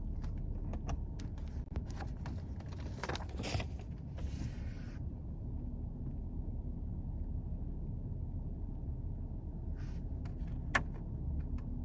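Low, steady rumble of a car heard from inside, with scattered small clicks and rattles in the first few seconds and again near the end, one sharper click about eleven seconds in.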